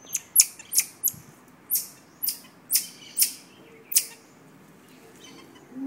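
Marmoset giving a series of short, sharp, high-pitched calls, about two a second, that stop about four seconds in.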